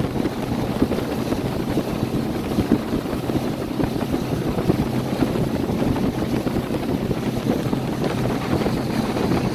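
Boat motor running with a steady low hum, with wind buffeting the microphone.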